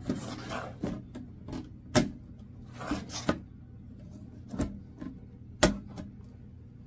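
Clear acrylic bag organizer case being handled, its magnetic front door snapping shut in sharp plastic clacks, several of them a second or so apart, with short rustling and scraping of the plastic panels in between.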